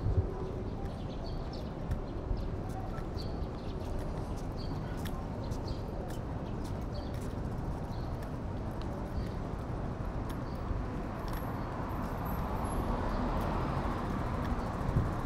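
Street ambience on foot: a steady low traffic rumble with light, regular footsteps. A car comes up from about two-thirds of the way in and grows louder toward the end.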